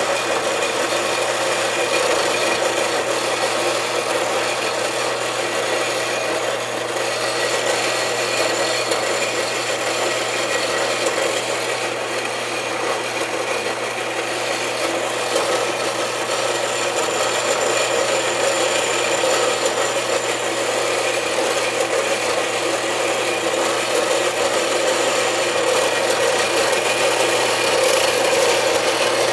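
A saw cutting through a stainless steel tube with a steady, unbroken cutting noise and a constant low hum underneath.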